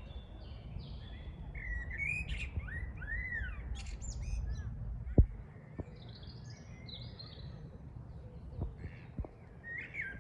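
Songbirds chirping and singing: a mix of short chirps and arched whistled notes, with a low rumble under them for the first half. A single sharp click about five seconds in.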